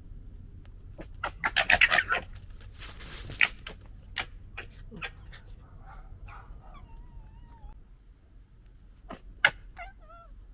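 European red foxes squabbling: a loud burst of harsh, rapid gekkering chatter about one to two seconds in, then scattered softer calls and sharp clicks, and a short wavering call near the end.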